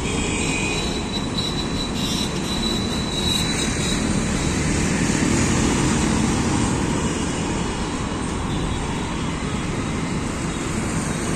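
Steady city street traffic noise, a constant rumble with no single event standing out.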